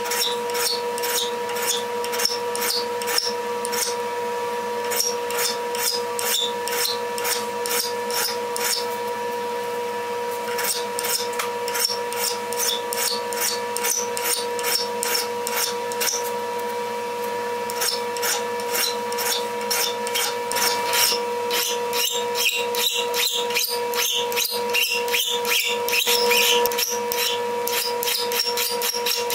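Hand file rasping across the steel poll of an axe head, in repeated back-and-forth strokes about two a second, chamfering its edge. The strokes pause briefly twice and come harder and quicker a little before the end.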